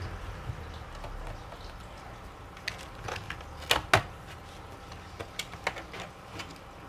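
Small clicks and taps from hands and a screwdriver working on a laptop's plastic case and screws, irregular, with two louder clicks close together about halfway through.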